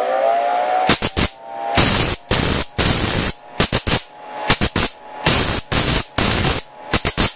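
1912 rotary spark gap transmitter sending SOS in Morse code twice: rasping spark bursts, three short, three long, three short, then the same again. Under the bursts runs the steady whine of the motor-driven rotary gap, which levels off in pitch about half a second in after spinning up.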